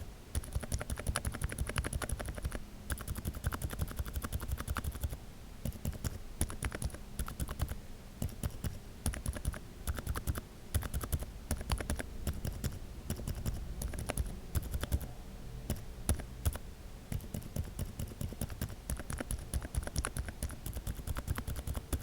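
Typing on mechanical keyboard switches with lubed and filmed Outemu silent tactile stems: rapid, quiet keystrokes with a few short pauses.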